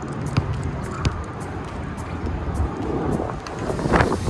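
Strong wind buffeting the microphone with a steady low rumble, and a basketball bouncing on the outdoor court in two sharp knocks about half a second and a second in. The wind gusts louder near the end.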